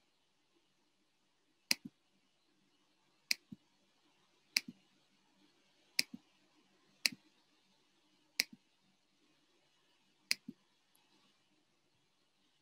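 Computer mouse button clicking seven times, about once every one to two seconds. Each click is a quick press-and-release pair.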